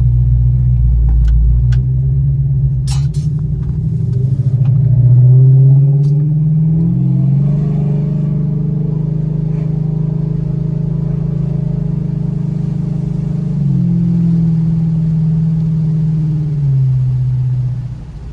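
Dodge Charger's Hemi V8 engine running under way. It pulls harder about four seconds in with its pitch climbing, holds steady, then eases down in two steps near the end, with a few sharp clicks in the first three seconds. The engine is running clean, with no misfires showing after a cylinder 8 harness replacement.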